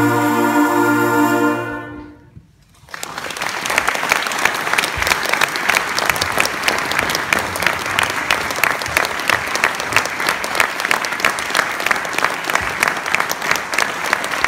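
A children's wind band of saxophones and clarinets holds its final chord, which stops about two seconds in. After a brief hush, the audience breaks into steady applause.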